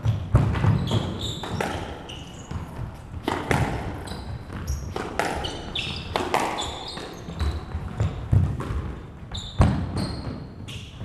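A squash doubles rally: the ball cracking off rackets and the court walls at irregular intervals, with shoes squeaking and feet thudding on the wooden court floor.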